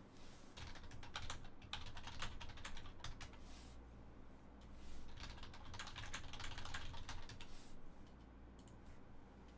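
Typing on a computer keyboard: quick runs of key clicks in two bursts, the second starting about five seconds in, then it stops near the end.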